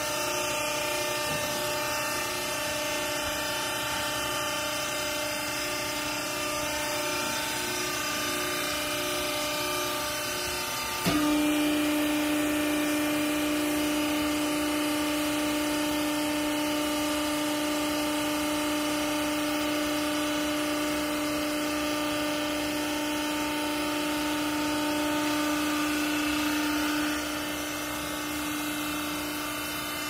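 Hydraulic power unit of a vertical clothing baler running with a steady machine hum. About eleven seconds in there is a click, and the hum turns louder and steadier; it drops back a few seconds before the end.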